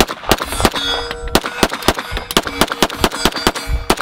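Arsenal Strike One pistol firing a rapid string of shots, about three a second, with steel targets ringing between the shots.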